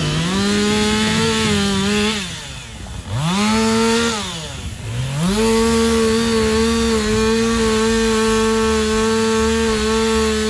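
Stihl two-stroke chainsaw running at full throttle while cutting a branch into logs. The throttle is let off twice, about two and four and a half seconds in, with the engine falling toward idle and revving back up each time, and it drops off again near the end.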